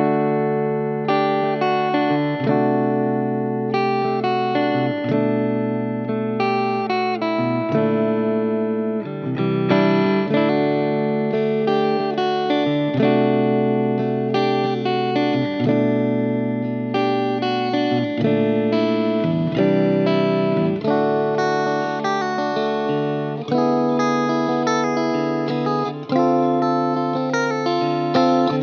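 Ibanez Q52 electric guitar playing a clean-toned passage of ringing chords and notes that change every second or two, with a backing track under it.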